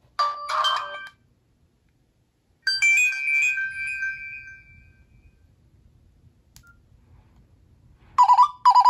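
Nokia N78's stereo speakers playing ringtone previews at maximum volume, loud and not tinny or crackly. There is a short snippet just after the start, then a ringing chime about three seconds in that fades away, and two quick sharp tones near the end.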